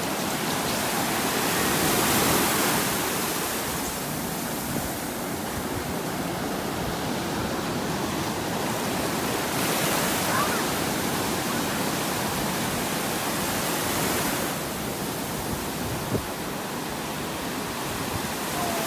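Ocean surf breaking and washing through the shallows: a steady rushing that swells louder a few times as waves break.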